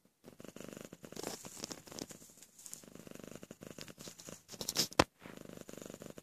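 Domestic cat purring as it dozes, a steady pulsing rumble that breaks off briefly and resumes with each breath. A single sharp click about five seconds in.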